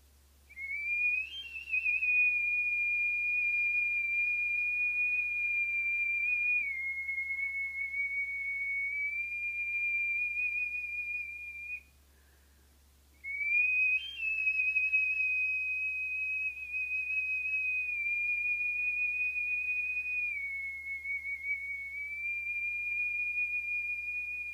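Iwabue, a Japanese stone whistle whose hole was bored naturally by a shellfish, blown in two long, high, pure whistling notes of about eleven seconds each with a short break between them. Each note opens with a quick upward flick, holds steady, dips slightly in pitch about halfway through and then climbs back.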